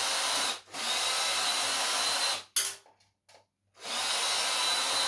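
Cordless drill-driver running in three short runs of a second or two, backing screws out of scrap computer parts: a steady motor whine with a thin high tone. There is a short click between the second and third runs, and the last run starts about four seconds in.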